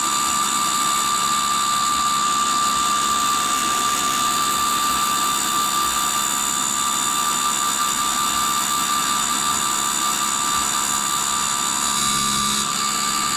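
Reinforced abrasive cutoff wheel on a tool and cutter grinder cutting through a high-speed steel tool blank that turns in a motorized work head: a steady grinding hiss over a constant high whine.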